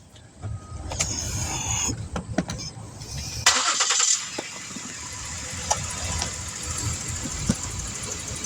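2012 Ford Taurus engine running at idle with a steady low rumble, broken about three and a half seconds in by a short, loud rush of noise.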